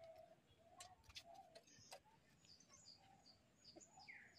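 Faint birdsong: small birds chirping again and again over quiet outdoor background, with a few light clicks between one and two seconds in.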